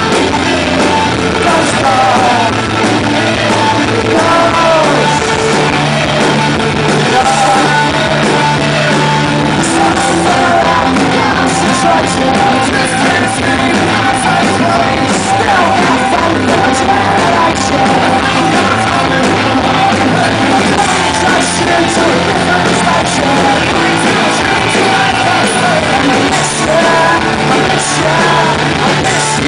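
Rock band playing live, with amplified guitars, bass, drums and a shouted lead vocal, recorded from the crowd so that the sound is loud and slightly distorted.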